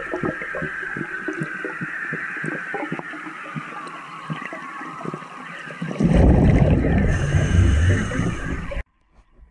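Underwater sound picked up by a diver's camera: scattered clicks and crackles over a steady hiss. About six seconds in, a loud low rush of bubbles, a diver breathing out, lasts nearly three seconds and then cuts off abruptly.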